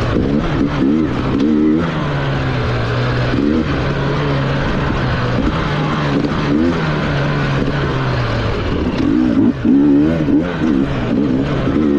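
Enduro motorcycle engine under a rider working the throttle, heard from on the bike. It holds a steady note for stretches, broken by repeated short revs that rise and fall in pitch. The revs come thicker and louder near the end.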